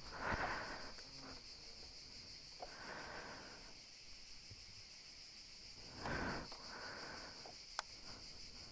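A person breathing out heavily a few times over a steady shrill of cicadas. A single sharp click comes near the end, and no engine starts.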